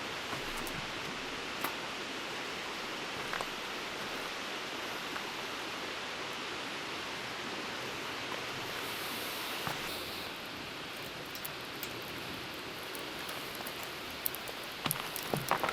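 Steady wind noise with rustling, easing a little about ten seconds in. A few light clicks come near the end.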